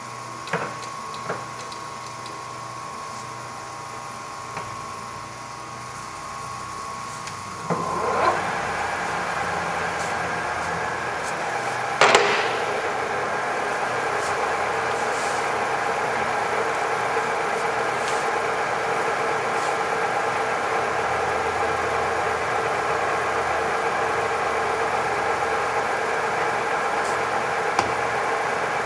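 Graziano SAG 20 centre lathe running: a steady motor hum with a few clicks of the headstock levers, then about eight seconds in the spindle spins up with a rising whine. A sharp clunk about twelve seconds in, after which the headstock gearing runs on steadily.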